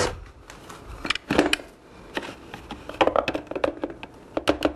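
Irregular light clicks and knocks of a small plastic food processor being handled, as its chopping blade is pulled up out of the bowl of crumbs. They come in small clusters, a few close together about three seconds in.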